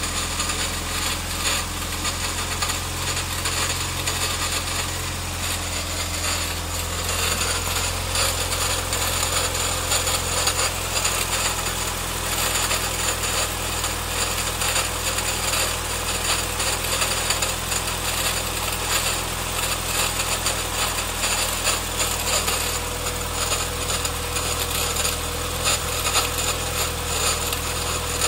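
Nissan CA18DE 1.8-litre DOHC four-cylinder engine running steadily with a fast, continuous rattle over the engine note. The cause of the rattle is unknown to the owner.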